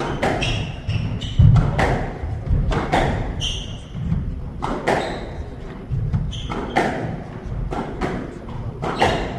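Squash rally: the ball cracking sharply off rackets and the walls about once a second, with short high squeaks and thuds from the players' shoes on the wooden court floor.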